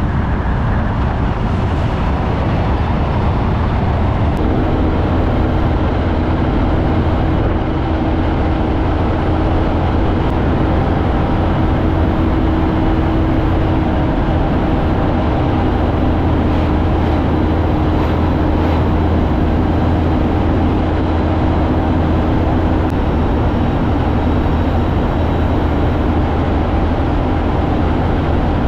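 Kenworth cabover truck's Cummins diesel engine running steadily under load up a mountain range, heard from outside the cab window with heavy wind and road noise over a steady engine drone.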